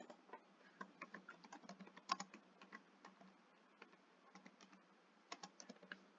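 Faint computer keyboard typing: quick key clicks in a run during the first half and a shorter run near the end.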